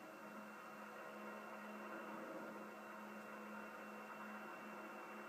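Light aircraft engine droning steadily at a constant pitch in flight.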